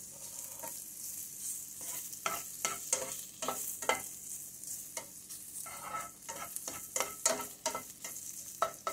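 Diced Italian bacon sizzling in a hot steel frying pan as its fat melts out, with repeated scrapes and taps of a plastic slotted spatula stirring the pieces.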